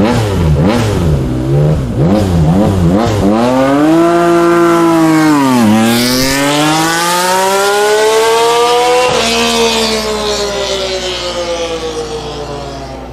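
Motorcycle engine revved: several quick blips of the throttle, then a hard climb in pitch, a sudden dip and a second long climb as it pulls up through a gear change. About nine seconds in it eases off and the engine note sinks slowly and fades.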